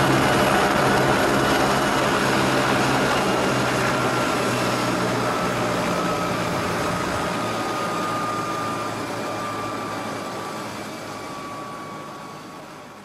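Helicopter turbine engine and rotor running on the ground: a steady low hum with a high whine that slowly falls in pitch. The sound fades out near the end.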